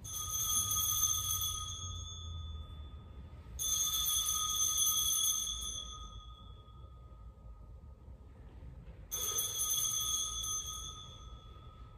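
Altar bells (sanctus bells) rung three times, a few seconds apart, each ring fading out slowly: the bells marking the elevation of the chalice after the words of institution.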